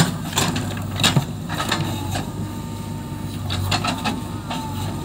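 JCB 3DX backhoe loader's diesel engine running steadily while the backhoe digs mud, with several sharp knocks and clanks from the bucket and arm.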